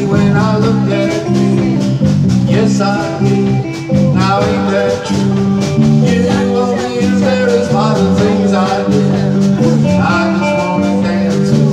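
Live band playing: electric guitar, acoustic guitar, electric bass and drum kit, with a steady beat and bending melodic lines over the chords.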